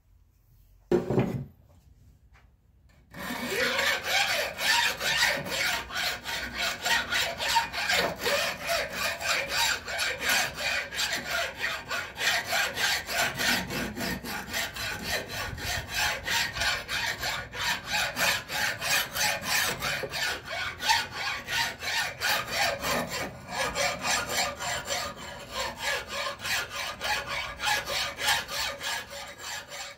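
A single short knock about a second in, then a hand file scraping back and forth in quick repeated strokes across rusty steel clamped in a vise.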